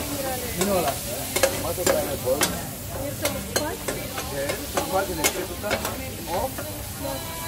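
Two metal spatulas scraping and clinking against a large steel frying pan as chicken pieces are stir-fried. The sharp clinks and squealing scrapes come irregularly, several a second, over a steady sizzle of frying.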